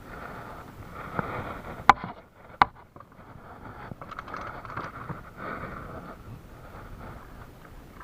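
Two sharp knocks close to the microphone, less than a second apart, over a steady hiss.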